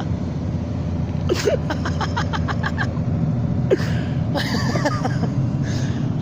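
Doosan excavator's diesel engine running steadily while it holds a tank too heavy for it, with stretches of rapid clicking and a few short squeaks from the machine.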